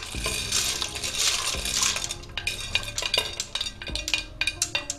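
Dried and green broad beans, chickpeas and white beans slid off a plate into a steel pot of water: a rush of pouring and splashing, then a run of sharp clicks as a wooden spoon scrapes and taps the last beans off the plate into the pot.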